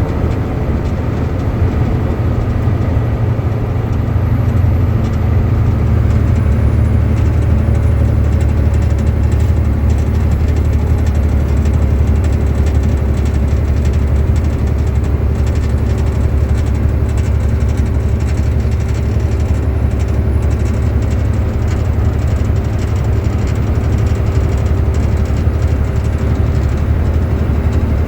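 Steady low drone from a 2006 Volvo 780 truck with its AC system running, with a faint steady whine over it, getting a little louder about five seconds in. The owner takes it for an abnormal noise from the AC system.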